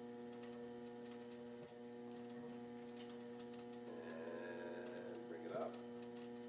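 Electric potter's wheel running with a steady electrical hum while wet clay is smoothed with a chamois, and a brief wavering squeal about four seconds in.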